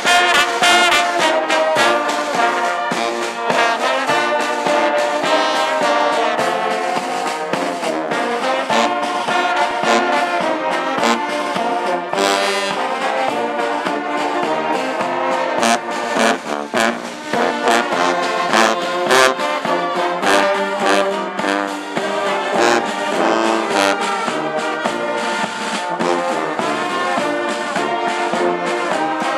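Brass band music: horns playing a melody in held notes over frequent drum strikes.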